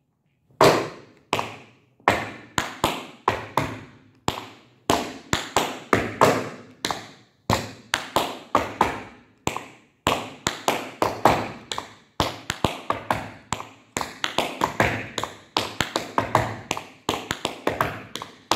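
Tap shoes striking a hard studio floor in repeated time steps (stomp, hop, step, flap, step): clusters of sharp metal taps, each ringing briefly in the room, with short pauses between groups. In the second half the taps come closer together, almost without gaps.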